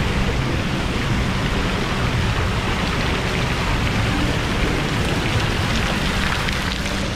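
Water showering down from a bridge onto a lazy river's surface: a steady patter and splash of falling drops, heard right at the waterline.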